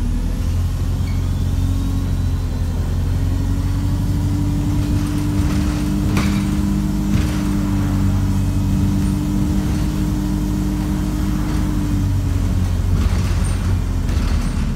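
Alexander Dennis Enviro350H hybrid bus's diesel engine running steadily under way, heard from inside the passenger saloon as a heavy low drone with a steady hum above it that drops away near the end. The uploader calls the engine unhealthy and thrashed.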